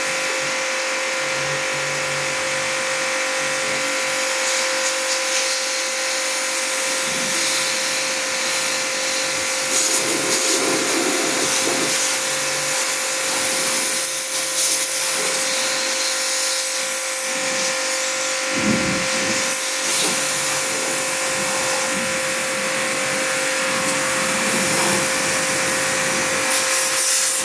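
Agaro Supreme electric pressure washer running steadily: an even motor hum with a steady hiss above it.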